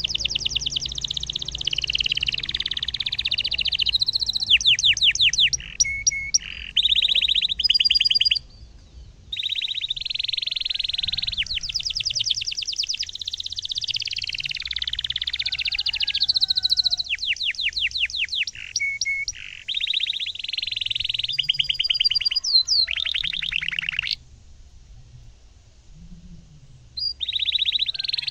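Canary singing long, loud song phrases of chirps and fast rolling trills of rapidly repeated notes. There is a brief break about a third of the way in and a pause of about three seconds near the end, before the song starts again.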